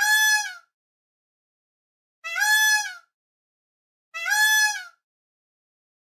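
Peacock calling: three loud calls, each just under a second long and roughly two seconds apart, each held on one pitch with a slight drop at the end.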